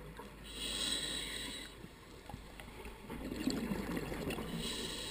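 Scuba diver breathing through a regulator underwater: a hissing inhalation about half a second in, a bubbling exhalation around three seconds in, and the start of another hissing inhalation near the end.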